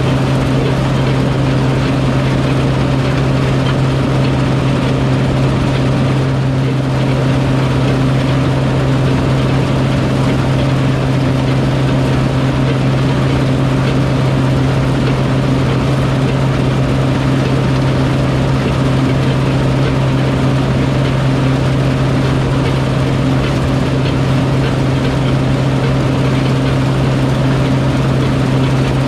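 A large farm machine's engine running at a constant speed: a loud, steady low hum that never changes pitch.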